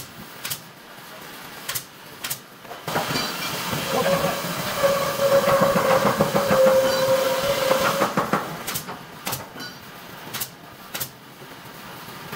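Pneumatic brad nailer firing in quick pairs of sharp shots, twice near the start and twice near the end, fixing thin wood strips. In the middle a louder steady machine noise with a hum rises and holds for several seconds.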